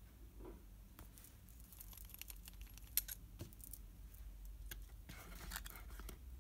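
Faint small clicks and taps of a plastic fountain pen being handled and its nib lowered into a glass ink bottle, with one sharper click about three seconds in and a little rubbing near the end.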